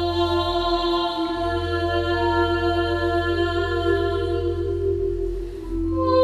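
A woman soloist singing slow, long-held notes, the pitch stepping to a new note about a second in and again near the end. A steady low hum runs underneath.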